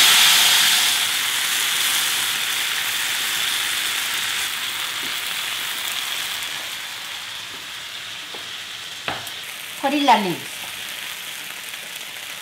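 Spicy stir-fried blood sausage and sauce sizzling in a preheated cast iron pot, loud at first and slowly dying down. A short click about 9 s in.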